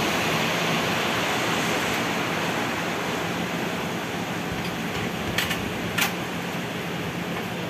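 Steady rushing hiss of a passenger train carriage's air conditioning, with a low even hum beneath it. Two short ticks about half a second apart come a little past the middle.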